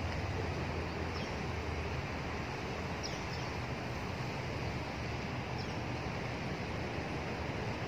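Steady rushing outdoor noise with a low hum underneath, and a few short, faint, high bird chirps.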